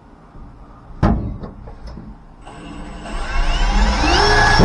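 Electric drill running as it bores a small pilot hole, its whine rising in pitch over the last two seconds, after a single knock about a second in.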